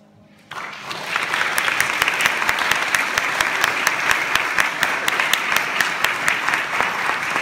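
Audience applause, breaking out about half a second in and swelling within a second to steady clapping, with sharp individual claps standing out.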